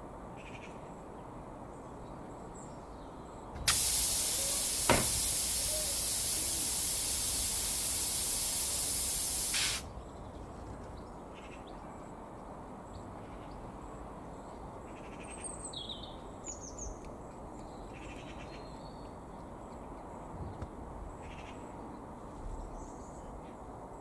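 Air hissing out of a car tyre through a puncture in the tread, once the nail is pulled from it with pliers. The loud, steady hiss starts suddenly about four seconds in and cuts off suddenly some six seconds later.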